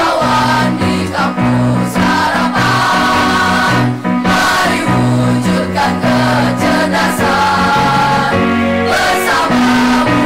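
A combined choir of children and young teenagers singing together, with held notes that change every half second or so.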